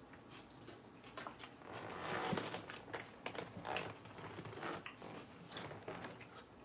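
A person chewing crisp lettuce salad: a run of irregular crunches, loudest about two seconds in.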